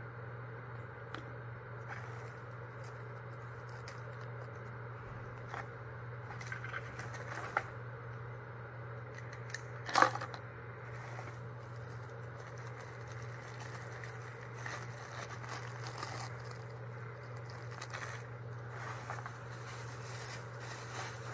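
Paper gift bag and tissue or plastic wrapping rustling and crinkling as items are taken out and handled, with small clicks of things being set down and one sharp knock about ten seconds in. A steady low hum runs underneath.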